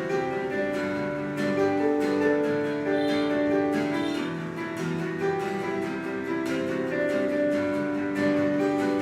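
Instrumental music led by a strummed and plucked guitar, playing held melody notes over chords at a steady level.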